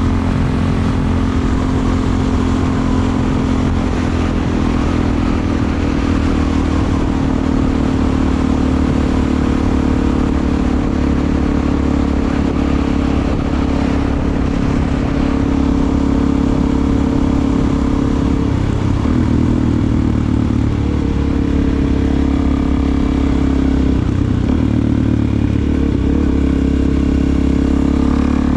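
Suzuki DR-Z400SM's single-cylinder four-stroke engine running through a Delkevic aftermarket exhaust while the bike is ridden, a steady engine note that shifts in pitch about two-thirds of the way in and again a few seconds later.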